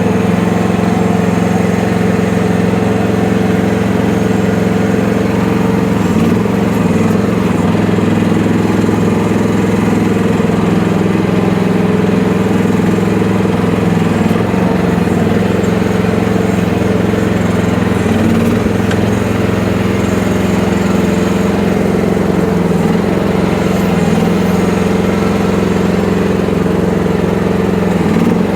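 Engine of an FF12 mini excavator running steadily, its note wavering slightly a few times.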